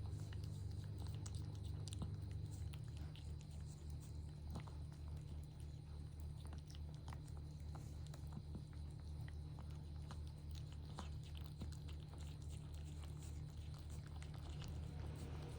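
Mother cat's mouth working at close range, small wet clicks and smacks scattered irregularly, typical of a queen cleaning her newborn litter. Under it runs a steady low hum.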